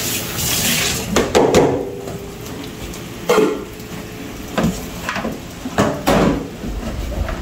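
A metal utensil knocking and scraping against a cooking pot of curry stew chicken: about seven clanks spread out, some with a short metallic ring.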